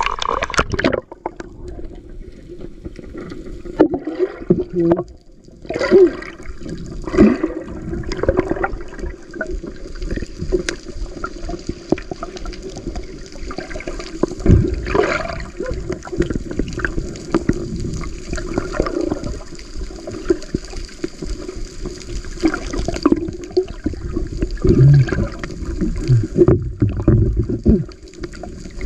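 Seawater heard through a camera held underwater: muffled sloshing and gurgling, with frequent knocks and clicks and a steady hum underneath.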